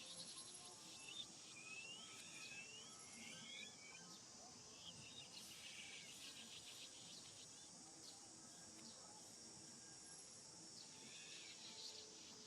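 Faint, steady high buzzing of insects such as crickets or cicadas in the forest. Short, high chirping calls rise and fall over it in the first half and again briefly near the end.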